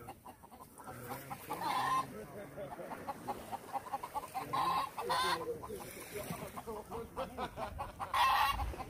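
Free-roaming chickens, a rooster and hens, clucking, with a few louder short calls spread through.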